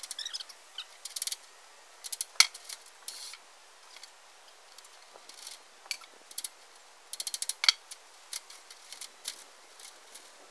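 Metal clicking and rattling from steel scaffolding parts being handled, in short runs of rapid clicks with a sharp louder clack about two seconds in and another near the end of the run about three-quarters of the way through.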